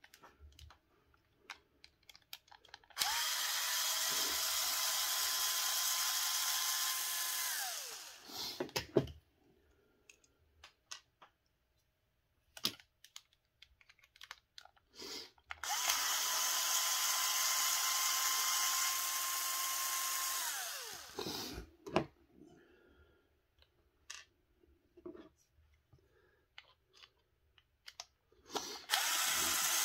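Small cordless power driver running in two bursts of about five seconds each, with a third starting near the end; its whine holds steady, then winds down as each run stops. It is backing out the screws of an RC transmission case. Light clicks and taps of small parts being handled come between the bursts.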